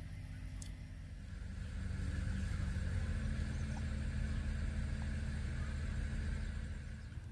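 Engine of a truck or concrete machine running steadily with a low rumble, growing louder for a few seconds in the middle.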